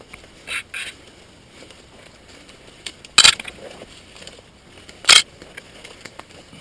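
Walking through dense forest undergrowth, with leaves and twigs rustling and crackling underfoot. Two loud, sharp snaps come about three and five seconds in.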